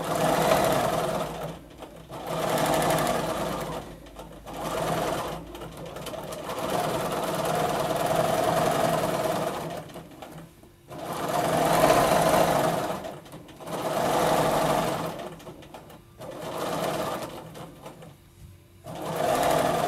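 Bernina domestic sewing machine with its stitch regulator, free-motion quilting: the needle runs fast in about eight separate runs of one to four seconds, with short stops between them.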